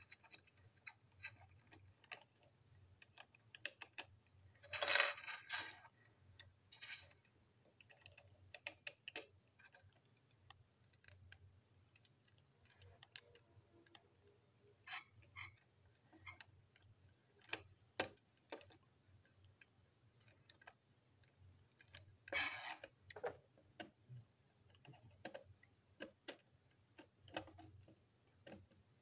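Small plastic and metal parts of a motorized toy train engine being handled and fitted together: scattered light clicks and taps, with two louder clattering bursts about five seconds in and again past twenty seconds.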